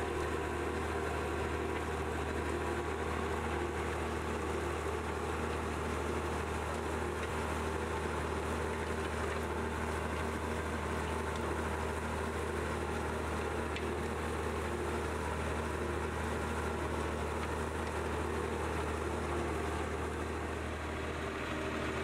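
David Brown 1594 tractor's diesel engine running steadily under load while pulling a plough, heard from inside the cab.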